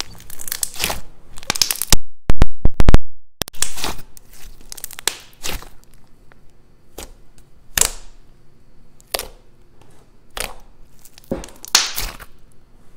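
Thick, glossy slime being squeezed and pressed by hand, popping and crackling as pockets of air burst inside it. A dense run of very loud pops comes about two seconds in, then single pops follow about once a second.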